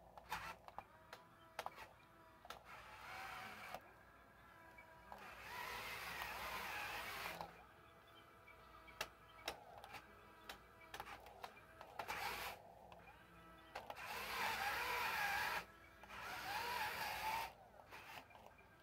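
Radio-controlled CAT loader's small electric drive motor and gearing whirring in several bursts of one to two and a half seconds as it drives back and forth over sand, with small clicks between the bursts.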